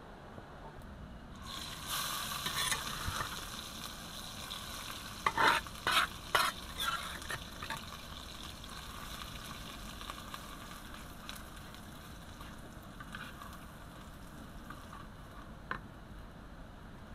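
Ground red chili spice paste sizzling as it fries in hot oil in a wok, stirred with a metal spatula. The sizzle starts about a second and a half in, with a few loud sharp clicks about five to six seconds in, then settles into a steadier fry.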